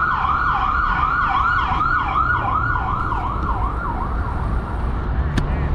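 Emergency vehicle siren in a fast yelp, sweeping up and down about three times a second, fading out after about four seconds, over a steady low rumble.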